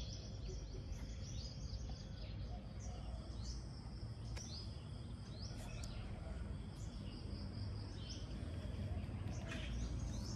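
Birds chirping outdoors: short, high calls repeating every half second or so, over a steady low rumble.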